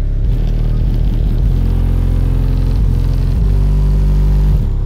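Deep, loud bass from a car subwoofer system (an American Bass Elite 12 in a Ground Shaker box) playing music, heard from outside the car; the bass notes change pitch every second or so.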